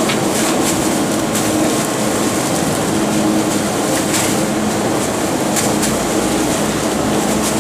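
Rotary-type garbage truck running its packer with a steady mechanical hum, while bagged refuse thrown into the rear hopper lands with a few short thumps.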